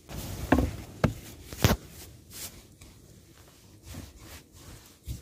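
Dough being kneaded by hand on a floured tabletop: dull thumps and pats as it is pressed and pushed. There are three sharper ones in the first two seconds, then softer ones.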